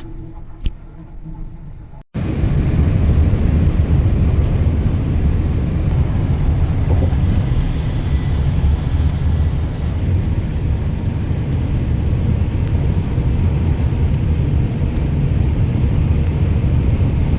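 Steady, loud road and engine rumble of a vehicle on the move, starting abruptly about two seconds in after a quieter stretch.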